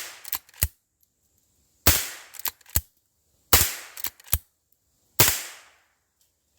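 Henry .22 lever-action rifle firing three shots about a second and a half apart, each ringing out and fading, with the tail of an earlier shot at the start. After most shots come two quick clicks, the lever being worked to chamber the next round.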